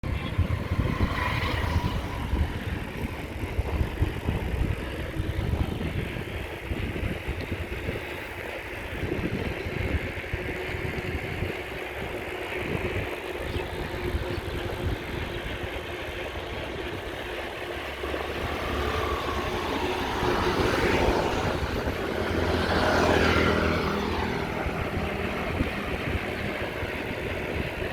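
Road traffic heard while riding, with gusty wind rumble on the microphone. A vehicle passes loudly about three-quarters of the way in, its pitch falling as it goes by.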